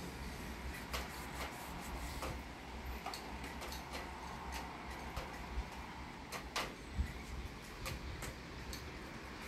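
Steady rain with irregular sharp ticks scattered through it, and low wind rumble on the microphone from the gusty storm front.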